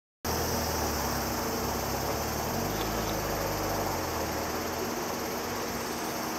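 Outdoor summer ambience: a steady high insect drone, with a low rumble of wind on the microphone underneath, cutting in just after a moment of silence.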